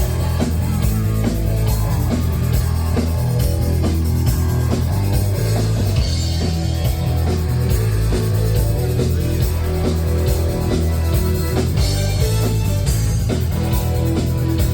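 Rock music with a drum kit, heavy bass and guitar.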